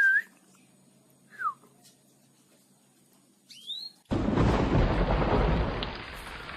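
A caged canary giving three short separate whistled call notes, one falling and one rising in pitch. About four seconds in, a loud rushing noise with a heavy low rumble starts suddenly, drowns them out and eases down about two seconds later.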